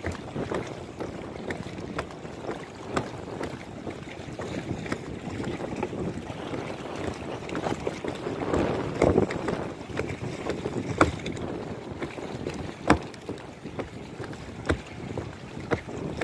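Sea water sloshing around a floating plastic pontoon walkway, with wind buffeting the microphone and scattered sharp knocks from the walkway; the water noise swells about eight to nine seconds in, and the loudest knocks come about eleven and thirteen seconds in.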